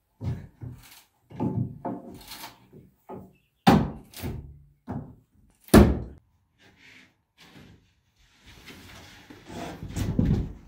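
Irregular knocks and thuds of a hammer working at wooden wall paneling to pry it loose, with the two loudest blows about four and six seconds in. A longer scraping rustle follows near the end as the panel is handled.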